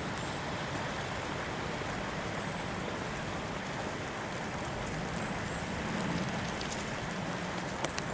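Steady hiss of rain falling, with two sharp clicks just before the end.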